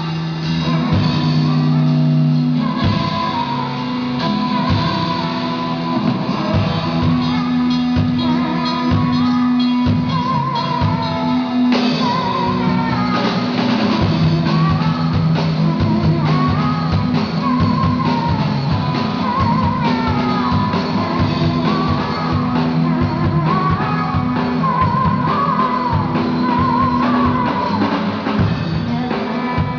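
Live band playing a rock song: a vocalist sings over electric guitar and a drum kit, the singing coming in about three seconds in.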